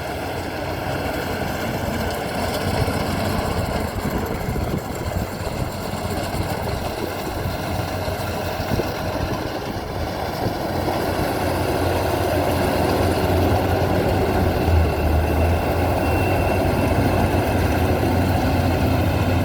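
Maxxi Bimo 102 rice combine harvester running steadily with a deep engine hum, growing louder a little past halfway.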